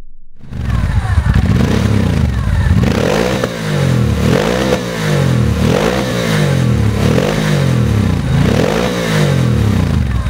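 Moto Guzzi Breva 750's air-cooled V-twin, breathing through a Dominator aftermarket silencer, revved repeatedly at standstill, starting about half a second in. Each throttle blip sends the pitch up and back down, about once every second and a half.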